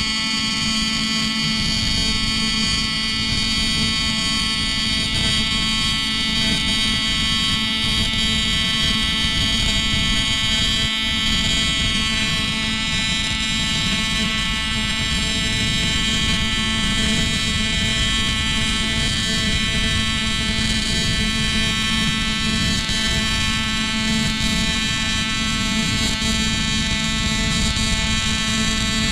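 TIG welding arc on the aluminium intercooler and plenum adapter, a steady buzz with many overtones that holds unbroken.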